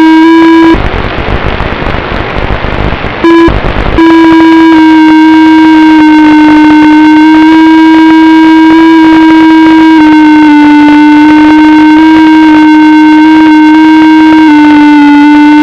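Loud, steady electronic buzz with a hard, square-edged tone whose pitch shifts slightly in small steps. About a second in, it gives way to hissing static for roughly two seconds, then returns.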